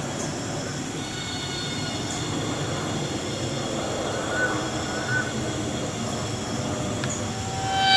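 Steady rainforest insect drone with several high, even whining tones, and a faint short chirp or two near the middle. A loud hornbill call begins right at the end.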